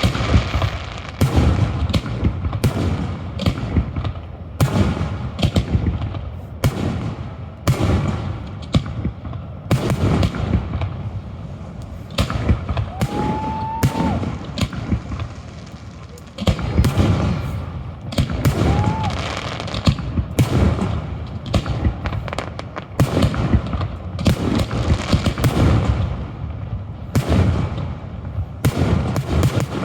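Aerial fireworks shells bursting in rapid, irregular succession, a few booms and cracks every second, during the display's finale run. Two short rising whistles come through, about halfway in and again a few seconds later.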